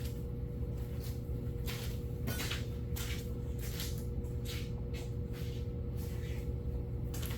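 A knife scraping and prying at a stuck carburetor top gasket in short, irregular strokes, over a steady low hum.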